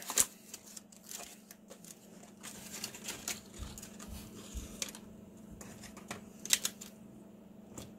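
Small cardboard box and clear plastic packaging handled on a workbench: scattered light clicks and rustles as the plastic insert is slid out, with a short cluster of sharper clicks about six and a half seconds in.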